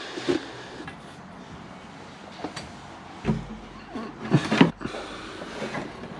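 Knocks and clunks of a diesel heater's mounting plate and metal exhaust and intake pipes bumping against the caravan floor as the unit is fed down through the hole. There is a low thud about halfway, and the loudest knocks come in a quick cluster about two-thirds through.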